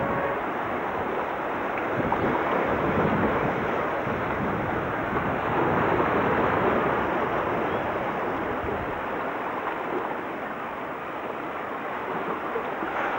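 Small ocean waves washing in, with wind buffeting the microphone as a low rumble through much of it.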